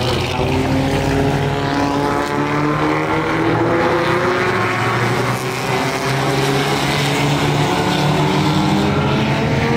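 Engines of several 1950s sports racing cars running hard together, their pitches climbing slowly as they accelerate.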